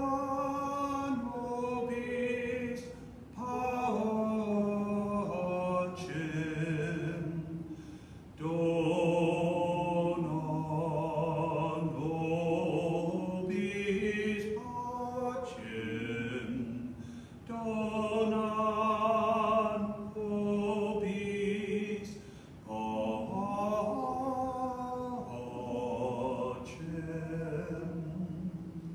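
A lone man's voice singing a hymn unaccompanied, in slow phrases of held notes with short pauses for breath between them.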